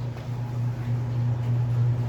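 1970s Penncrest 100 box fan with a Lakewood motor running steadily: a low motor hum under the even rush of air from its blades.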